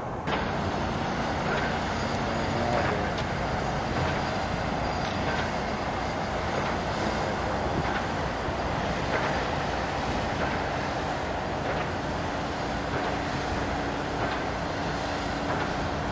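Steady rumble of a fire boat's engine running, with a faint steady hum joining about twelve seconds in.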